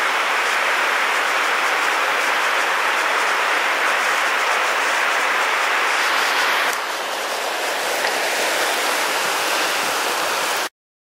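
Fast, shallow river rushing over boulders and small rapids: a steady, loud rush of water that gets a little softer about two-thirds of the way through and then cuts off abruptly near the end.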